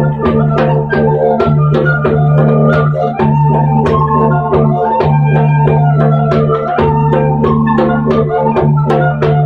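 Live music: the steady drone of a didgeridoo, broken briefly every couple of seconds, under a quick run of bright struck melodic notes.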